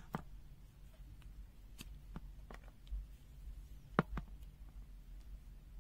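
Faint, sharp clicks and taps from handling multimeter test leads and their probe-tip covers, scattered a few at a time, with a louder pair of clicks about four seconds in.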